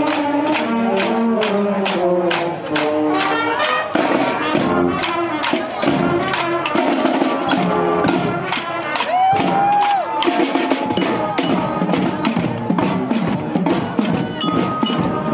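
School marching band playing on the march: trumpets, clarinets and sousaphones over a steady beat of snare drums.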